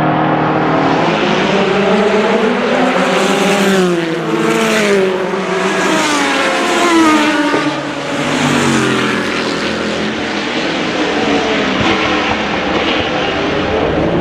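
Spice Group C prototype's 6.5-litre Chevrolet V8 race engine running steady at first, then accelerating hard. Its pitch climbs and drops back several times as it shifts up through the gears.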